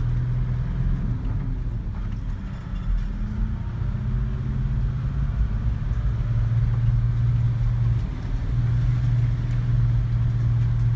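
Four-wheel-drive vehicle's engine running steadily at low speed as it crawls along a muddy track, heard from inside the cab as a low drone. Rain patters faintly on the body and windscreen.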